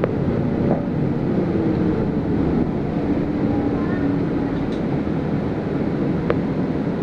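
Interior of a city bus under way: steady engine and road noise, with a drivetrain hum that slides down in pitch over the first two seconds and then holds steady. A single sharp tick sounds about six seconds in.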